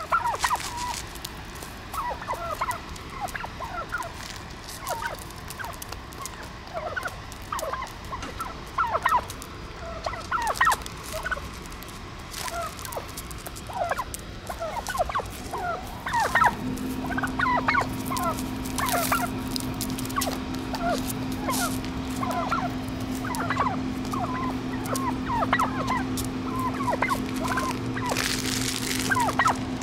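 Wild turkeys squeaking: many short, high, chirping calls, irregular and overlapping, from several birds close by. About halfway through, a steady low machine hum starts beneath them.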